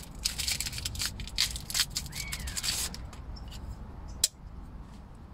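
Hands working a flexible bivvy-light holder that still has its plastic film on: a run of rustling and scraping handling noises, then one sharp click about four seconds in.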